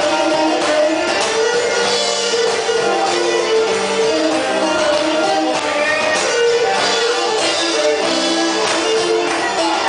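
Live Cretan folk music, instrumental: a bowed Cretan lyra carries the melody over a strummed laouto.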